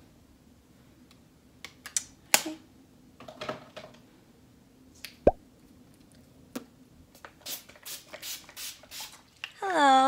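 Quiet handling noises of cosmetics: scattered soft rubs and small clicks, with one sharp click about five seconds in. A woman's voice begins just before the end.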